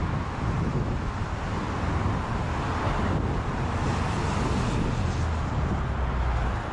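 Street traffic: cars driving past on a city street, a steady wash of engine and tyre noise that swells a few seconds in as a car passes close.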